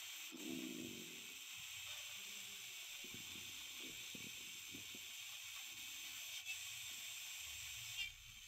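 Small loudspeaker of a one-transistor (BF494) super-regenerative FM receiver giving a steady rushing hiss, the receiver's noise off-station while it is tuned, with faint broken sound under it. The hiss drops away near the end.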